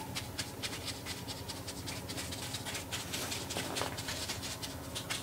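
Damp paper being tapped and dabbed into carved stone with a small brush, as the paper is pressed into the relief before inking a rubbing. Rapid, irregular soft taps, several a second.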